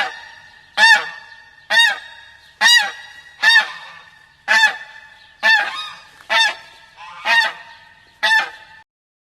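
Wild goose honking: about ten loud honks, close to one a second, each with a fading echo after it.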